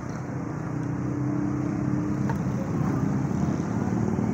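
A motor vehicle engine running with a steady low drone, growing slowly louder.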